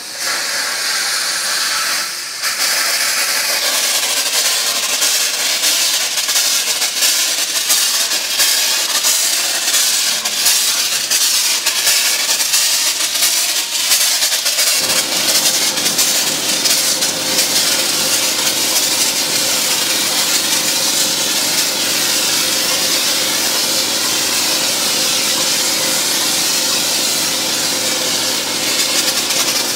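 Spray gun of a pressurised foam wash tank hissing steadily as it sprays thick foam, with a short break about two seconds in. From about halfway a lower, steady hum joins the hiss.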